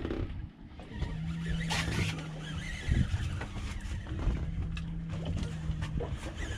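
Boat engine idling: a steady low hum that fades in and out, with scattered knocks and clicks on the deck.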